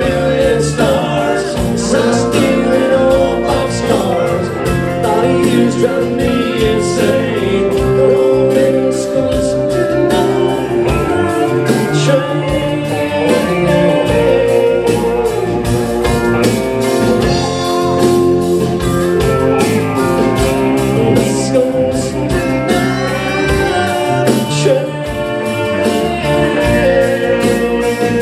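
Live band playing a country-blues rock song, with guitar and singing.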